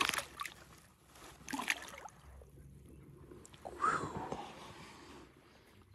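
Water splashing and sloshing beside a kayak as a caught bass is let go into the water: a few short splashes, the largest about four seconds in.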